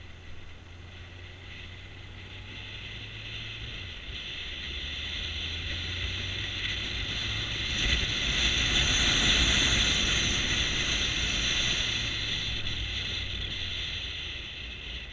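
Motorcycle riding along a road: a steady low engine hum under wind and road noise that swells to its loudest about two thirds of the way in, then eases off.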